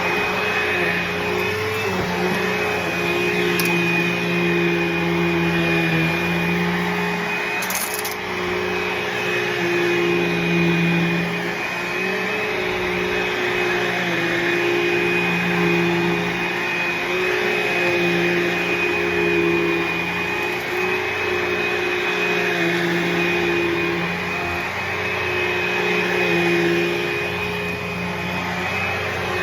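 Bissell Cleanview II Bagless upright vacuum cleaner running while vacuuming. It gives a steady motor drone with a high whine, and its lower tones swell and ease every couple of seconds.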